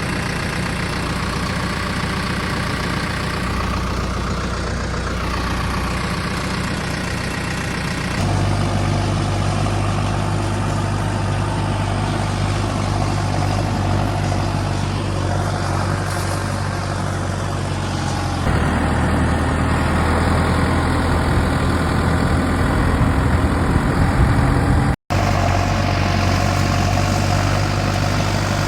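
Tractor engine running steadily. Its hum changes abruptly twice, about a third and two thirds of the way through, and the sound drops out for an instant near the end.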